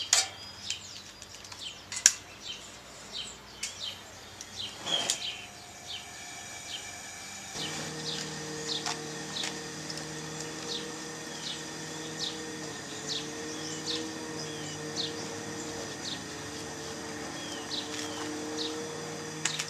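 A bird repeating a short, falling chirp about once a second, over a steady low hum that sets in about a third of the way through. A sharp click sounds about two seconds in.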